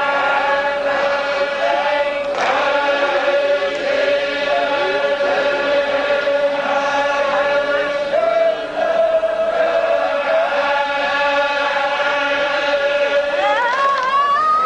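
Zikri chogan devotional chanting: voices hold one long sustained note over wavering lower vocal lines, the note stepping up about eight seconds in and rising again near the end.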